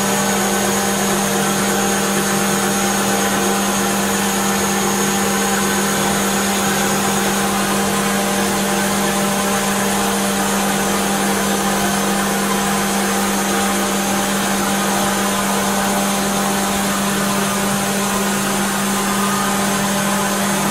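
Subaru Baja's flat-four engine idling with the A/C compressor and electric cooling fans running during an R134a recharge, a steady loud hum with no change.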